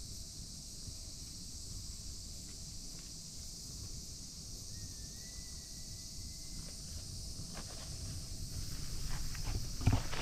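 Steady high chirring of insects in the background, with a rustle of handling and a few knocks building up over the last two seconds and one louder thump just before the end.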